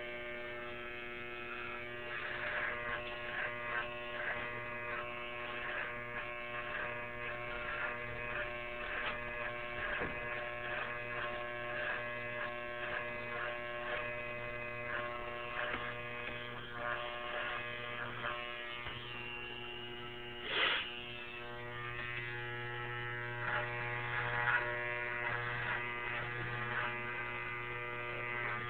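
Electric shaver running with a steady buzz, crossed by frequent short rasping strokes. There is a brief louder scrape about twenty seconds in.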